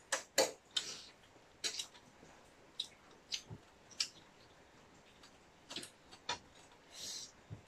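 Eating sounds: irregular short wet clicks and smacks of mouths chewing food, a dozen or so scattered through, the loudest near the start.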